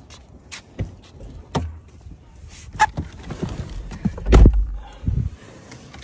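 Footsteps and scattered knocks of handling, with one heavy low thump a little over four seconds in and a smaller one about a second later.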